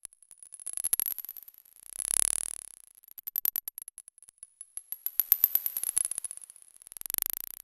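Synthesized electronic noise: a thin high tone wavering in pitch over dense crackling pops that swell and fade in waves, with two louder hissing swells, one about two seconds in and one near the end.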